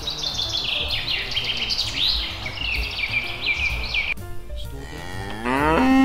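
Many birds chirping and chattering in quick, high calls over a steady hiss for about four seconds, then, after a brief break, a cow mooing once near the end, rising in pitch and then holding.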